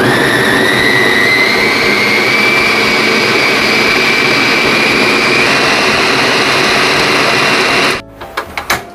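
Mitochiba electric chopper (mini blender) motor running under load, grinding chilies, shallots, garlic and kluwek with water into a spice paste. Its whine rises slightly in pitch over the first few seconds, then holds steady until it stops abruptly about eight seconds in.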